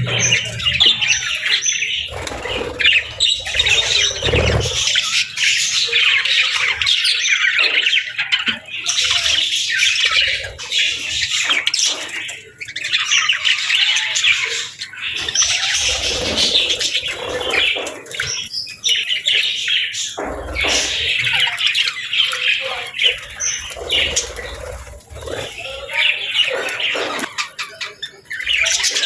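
A group of budgerigars chirping, chattering and squawking, a dense, fast stream of high chirps with brief pauses.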